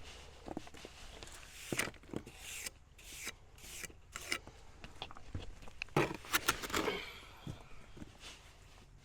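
Trowel scraping and pressing chinking mortar into the gaps between cabin logs: a string of short, irregular scrapes, busiest about two-thirds of the way through.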